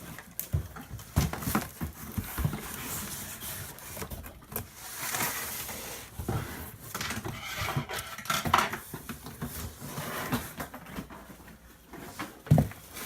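Cardboard box and plastic packaging being handled, rustling with scattered knocks and thumps, as an RC truck is lifted out of its box.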